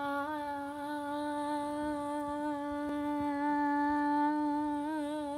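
A girl singing one long held note on an open vowel, steady in pitch, with a slight waver near the end.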